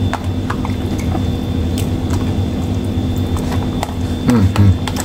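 Wet squishing and small liquid sounds as hands turn and press whole milkfish in a vinegar, soy sauce and garlic marinade in a plastic tub, with scattered small taps against the container. A steady low hum runs underneath.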